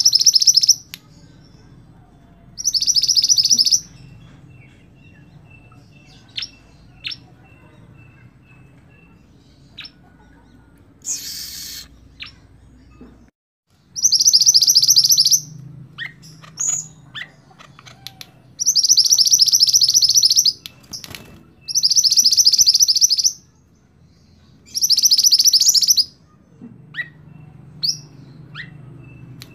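Mantenan songbird singing: loud, high, fast-pulsed trills about a second long, six of them a few seconds apart, with soft short chirps between.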